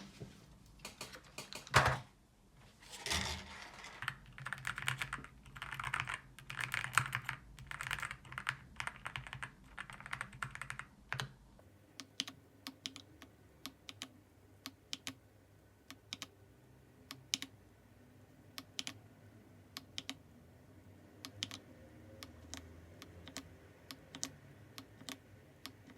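Typing on a Rainy 75 mechanical keyboard fitted with linear switches. Quick runs of keystrokes fill the first eleven seconds or so; after a sudden change, slower, separate key presses follow.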